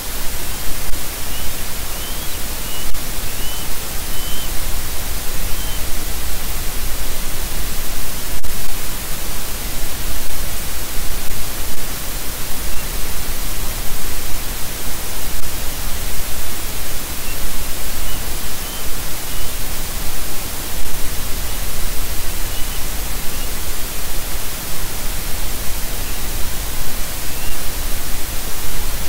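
Loud, steady hiss of static from a nest camera's microphone, with faint short high chirps now and then.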